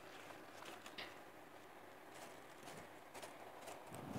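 Faint handling noise of a small umbrella with metal ribs being unwrapped and opened: light clicks and rustles, a sharper click about a second in and a soft thump near the end.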